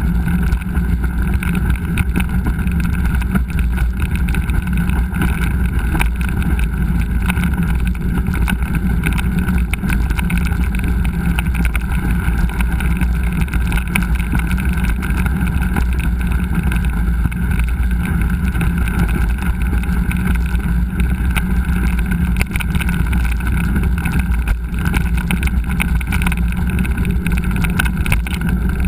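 Steady, loud low rumble of wind buffeting an action camera's microphone while riding a mountain bike, with scattered small rattles.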